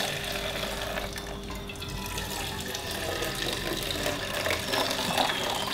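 Hot sweetened milk tea poured in a long, steady stream from a height into a stainless steel pitcher, splashing and gurgling into the metal cup. This is pulling the tea between pitchers to aerate it and build foam.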